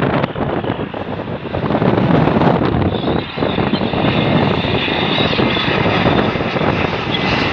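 Airbus A319 airliner's jet engines on final approach with the landing gear down: a steady rushing noise, joined about three seconds in by a high engine whine as the jet draws near.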